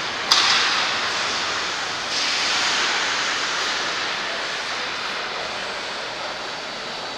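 Ice hockey skates scraping and carving on rink ice, a steady hiss that echoes in the rink, with a sharp hit about a third of a second in and a louder surge of scraping about two seconds in.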